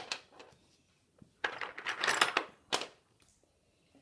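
Small plastic construction pieces clicking and clattering as they are handled and pressed onto a plastic baseplate, a few separate clicks with a longer rattle in the middle.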